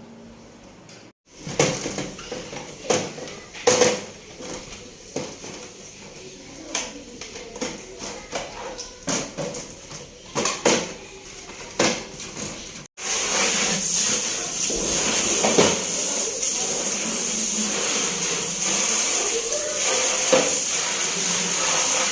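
Repeated clicks and knocks of hard parts being handled, then, after a sudden cut about 13 seconds in, a steady loud hiss.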